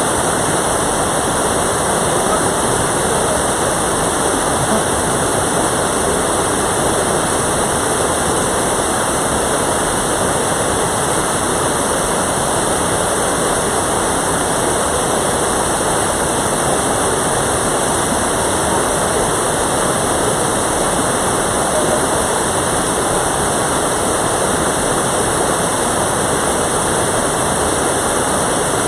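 Mountain stream water rushing steadily over rocks, close and loud, with no change in its sound.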